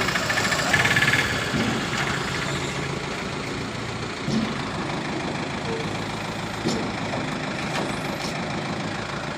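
Heavy diesel engine running steadily at low revs, a little louder about a second in.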